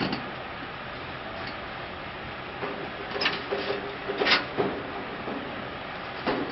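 Steel two-wheeled brick cart being tipped up on end under its load of bricks, with a few sharp clanks of metal and brick, loudest about three and four seconds in, over steady background noise.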